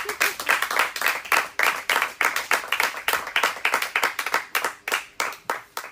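A small audience applauding, dense clapping that thins out and fades away near the end.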